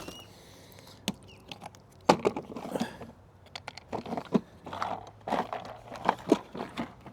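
Irregular clicks, taps and rustles of hands handling plastic drip irrigation tubing and fittings during a line repair.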